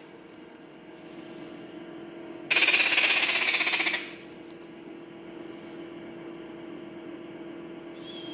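Parrot chick giving a harsh, rapidly pulsed begging rasp for about a second and a half, starting a little over two seconds in, during hand-feeding. A steady low hum runs underneath, and a thin whistle-like tone comes near the end.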